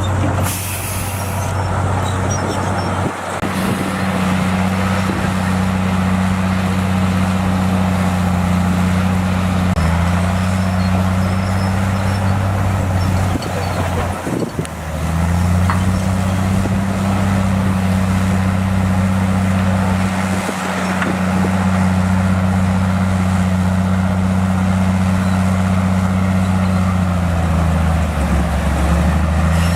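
Heavy diesel engine of a Komatsu bulldozer running hard, its note dipping and recovering several times as the machine takes and sheds load while pushing dirt.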